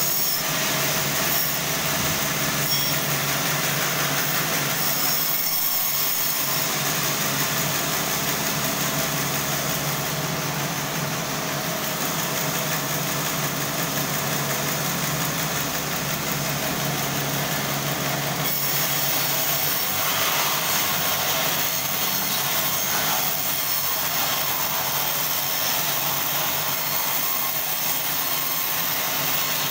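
Sawmill band saw running and cutting through a large log, over a steady motor hum. The high hiss of the cut changes about two-thirds of the way through.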